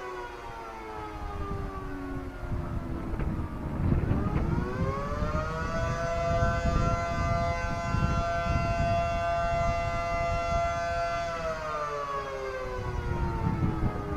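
Air-raid siren wailing. Its pitch falls, rises again about four seconds in, holds steady for several seconds, then falls away near the end.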